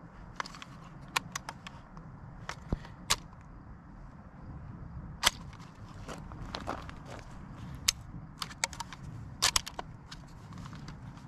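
Irregular light clicks and crunches of shifting feet on gravel and handling of the firearm, over a low steady rumble. No shot is fired.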